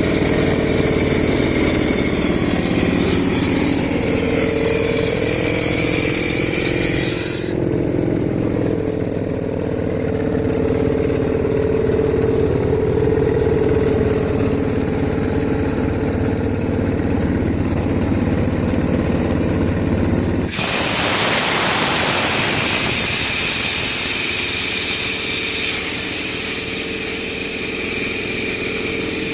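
Single-cylinder Yanmar diesel engine running an air compressor at a steady speed. About twenty seconds in, a loud hiss starts suddenly and carries on over the engine.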